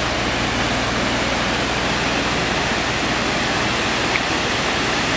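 Steady rush of flowing water, an even noise with no change in level.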